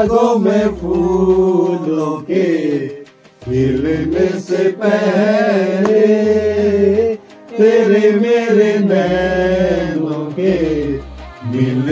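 Men singing a slow song without instruments, a lead male voice holding long, wavering notes, with short breaks about three seconds in and near seven seconds.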